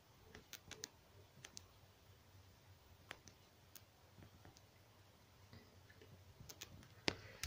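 Near silence with a few faint, sharp clicks scattered through it and a louder click near the end.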